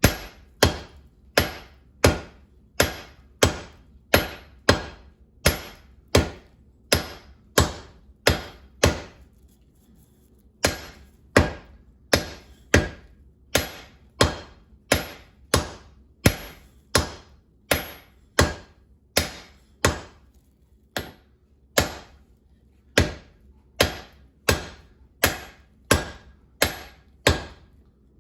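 Blacksmith's hammer striking hot steel on an anvil in a steady rhythm of about two blows a second, each blow ringing briefly. The blows pause briefly about a third of the way in and again about two-thirds of the way in, then stop shortly before the end.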